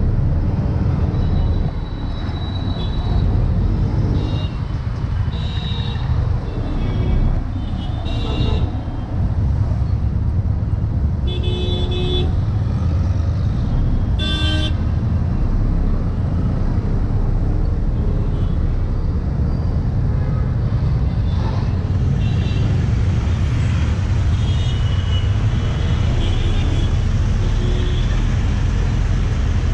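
Ride inside an open auto-rickshaw in city traffic: steady engine and road rumble, with short horn toots from surrounding vehicles sounding several times, the loudest two near the middle.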